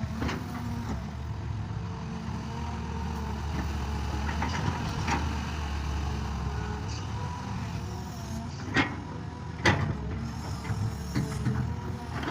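Tractor engine running steadily under load, with a couple of sharp metallic clanks near the end.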